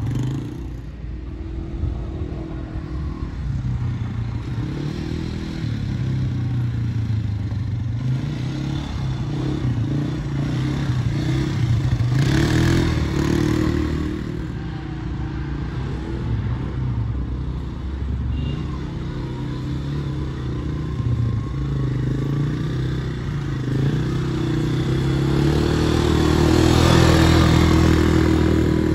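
A 200 cc quad bike (ATV) engine running as it is ridden around a dirt track, its pitch rising and falling with the throttle. It grows loudest near the end as the quad passes close by.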